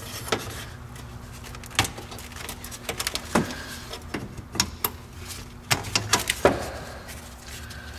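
Scattered clicks, taps and light knocks of a car's wiring harness and nearby engine-bay parts being handled and pushed aside by gloved hands, over a low steady hum.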